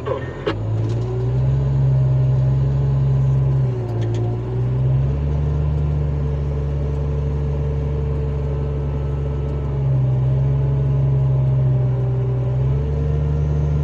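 Heavy-equipment diesel engine working under load, a loud steady rumble whose note drops and comes back up twice.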